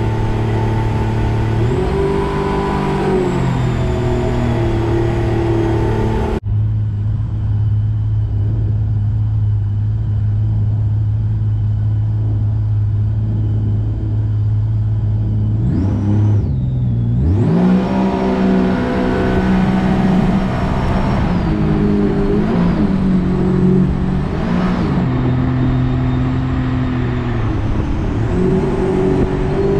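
Rotax 4-TEC 250 engine of a jet boat running at speed during its break-in, a steady drone. About sixteen seconds in, the revs drop and climb again, and the engine note rises and falls after that.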